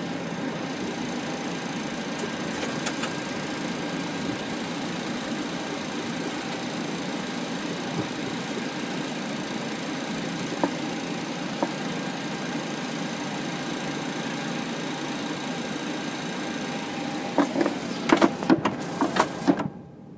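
Steady cockpit noise of a taxiing Boeing 737-800: its jet engines at idle under a constant rushing hiss, with thin high steady whines. Near the end comes a quick cluster of clicks and knocks, the loudest sounds, and then the noise drops away abruptly.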